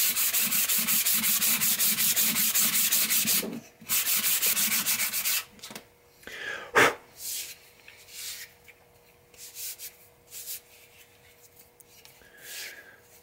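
Sandpaper (220 grit) scrubbed back and forth fast along a hickory hammer handle, many strokes a second, in two spells of a few seconds. Then the sanding stops, leaving faint handling of the bare wood and a single knock.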